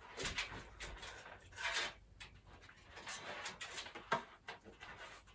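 Plastic clicks and rustling of a fan's power lead and a Molex connector being handled and pushed together, in short irregular bursts.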